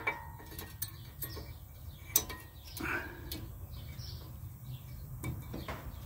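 Light metallic clicks and clinks as new front brake pads for a 2019 Nissan Rogue and their small pad springs are handled and fitted, a few scattered clicks over a low steady hum.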